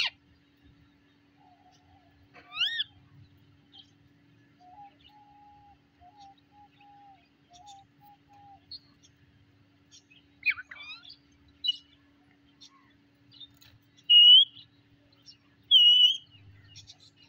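Rose-ringed parakeet giving short, sharp calls: one about two and a half seconds in, a few around the middle, and the two loudest near the end. Between them comes a faint run of short, low whistled notes.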